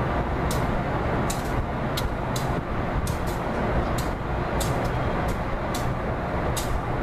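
A train rumbling along the track: a steady low drone with a string of short sharp clicks, about two a second, like wheels passing over rail joints.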